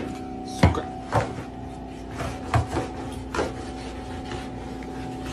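About five sharp knocks or bangs spread over the first few seconds, over a steady hum.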